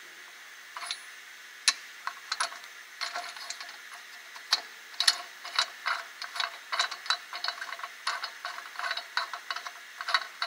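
Irregular metallic clicking and clinking of a socket and lug nuts being worked by hand onto the studs of a wheel spacer bolted to a rear brake drum, several clicks a second and more frequent after the first second or so.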